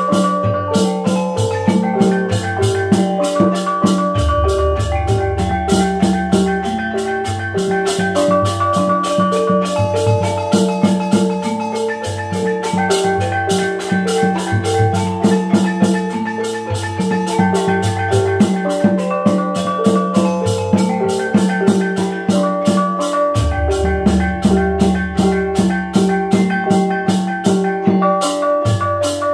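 Osing gamelan playing: rows of bronze kettle gongs struck in a busy ringing melody over a kendang drum and fast even strokes. A deep gong stroke comes in about four seconds in and again about six seconds before the end.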